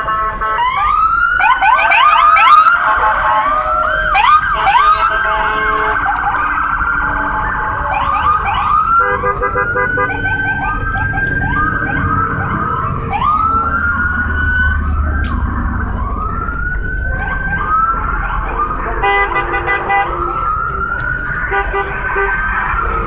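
Several police-style electronic sirens sounding at once, overlapping wails that sweep up and down in pitch. A couple of times they switch to a rapid pulsing tone. Passing car engines rumble underneath.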